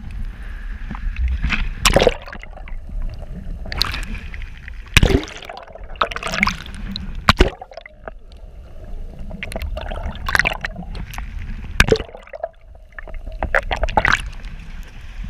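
Seawater sloshing and gurgling around an action camera as it skims along and dips under the ocean surface, with sharp splashes every few seconds over a steady low rumble.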